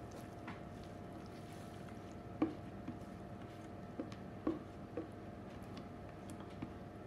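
Egg-coated spaghetti sliding wetly out of a plastic bowl into a springform pan as a spatula pushes it along, with a few soft knocks of the spatula against the bowl about halfway through.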